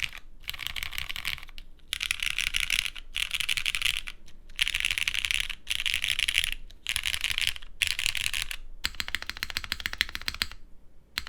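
Typing on a custom mechanical keyboard with a polypropylene plate, lubed non-broken-in Cherry MX Black linear switches and GMK keycaps, with a slight scratchy, chalky quality from the new switches. Keystrokes come in quick runs about a second long with short pauses between, ending with a fast dense run and then a few single presses.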